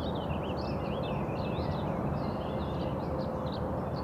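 Several songbirds chirping and singing in quick, overlapping phrases over a steady low rumble of distant road traffic.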